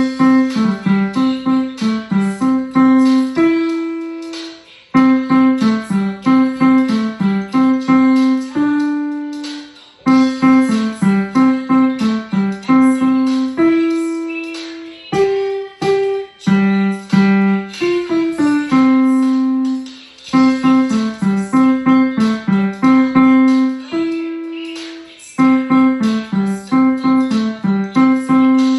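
Yamaha digital piano playing a simple melody with accompaniment, in phrases of quick, short notes that each end on a held note, with brief breaks between phrases.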